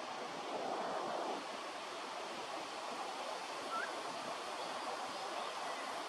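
Steady outdoor rushing noise, like distant surf or wind, with a faint short rising chirp about four seconds in.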